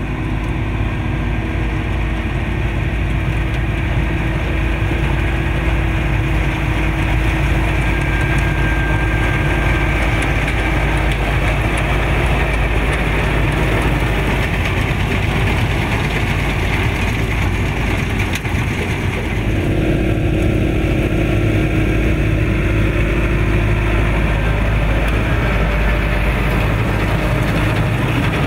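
Massey Ferguson 6615 Dyna-6 tractor's four-cylinder diesel engine running steadily under load while pulling a Krone round baler, which is working as it picks up grass. The engine note changes about two-thirds of the way through.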